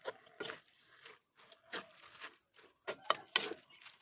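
Spatula scraping and turning pork pieces and glass noodles in a metal wok, in irregular strokes, with a couple of sharper clinks about three seconds in.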